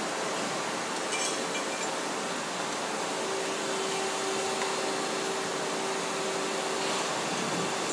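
Steady factory-floor noise from rows of running machine tools: an even hiss with a faint hum, and a thin steady tone that holds for a few seconds in the middle. A brief light clatter comes about a second in.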